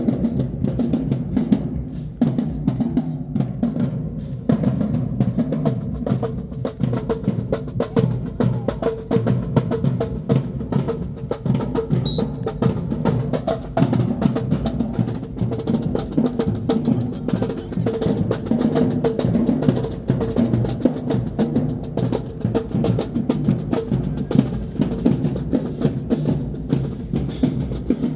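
High school marching band drumline playing a cadence: rapid snare strikes over steady bass drum beats, with no break in the rhythm.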